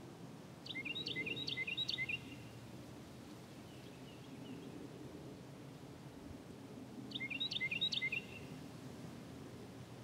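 A songbird singing two short phrases of quick, high, chirping notes, about six seconds apart, over a steady low rustle of wind.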